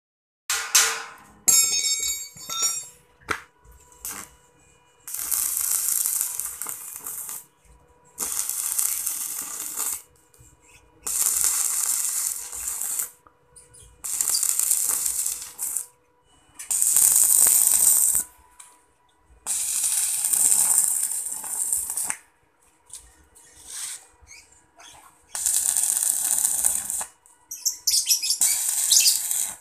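Electric stick (arc) welding on steel tower tubing: the welding arc crackles and sizzles in runs of about two seconds, about eight times, with short silent pauses between runs. A few short clicks and rattles come in the first three seconds.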